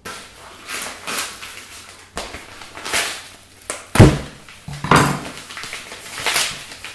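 A white shipping bag being slit with a kitchen knife and torn open by hand, crinkling and tearing in a string of short rustles, with a loud knock on the wooden tabletop about four seconds in.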